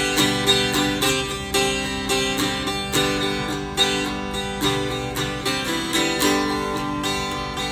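Godin acoustic guitar strumming chords in a steady rhythm, about two strums a second, with the chords changing as it goes.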